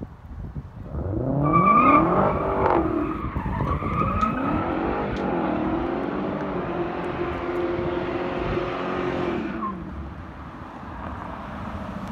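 2017 Dodge Challenger SRT Hellcat's supercharged V8 revving hard through a burnout, rear tyres spinning and squealing on the pavement. The revs climb about a second in, dip and rise again, hold high for several seconds, then drop off as the car comes off the throttle near the end.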